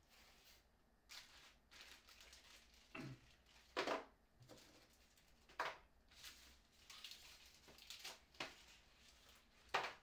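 Plastic packaging being handled on a desk: a plastic bag crinkling and a plastic pack of spare keycaps lifted and set down, as a run of short, irregular rustles and light taps.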